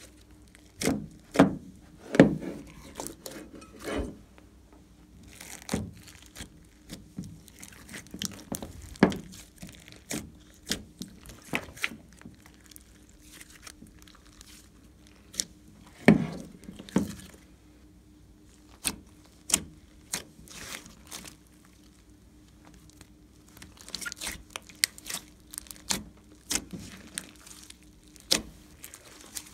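Glossy slime being squeezed, stretched and folded by hand, giving irregular wet clicks, pops and squelches, the loudest a few near the start and one about halfway through.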